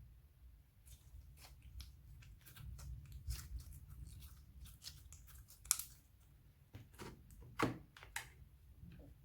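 Slime being squished, pressed and stretched by hand: faint, irregular soft clicks and crackles, with two sharper pops, one a little past the middle and one near the end.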